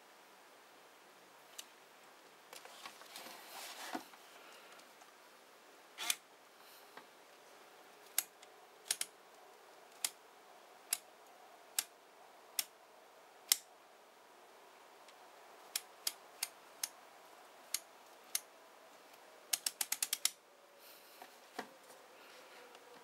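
Crisp single clicks of a Nikon DSLR's controls being turned one detent at a time, mostly about a second apart, with a quick run of about seven clicks about twenty seconds in. A short rustle of hands handling the camera comes a few seconds in.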